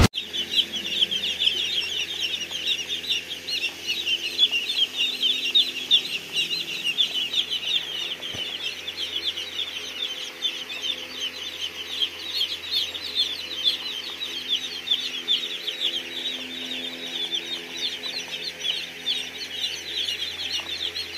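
Many birds chirping continuously in a dense chorus of short, rapidly repeated high notes, over a faint steady hum.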